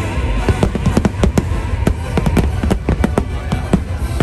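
Aerial fireworks going off in a rapid series of bangs, several a second, with a low rumble, over loud music from the show's soundtrack.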